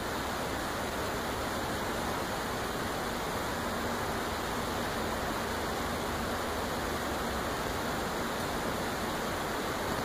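A steady, even rushing noise with no distinct events.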